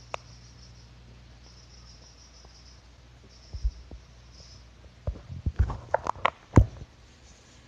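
Handling noise from the phone: scattered knocks and clicks, crowded together between about five and six and a half seconds in, over a faint low hum.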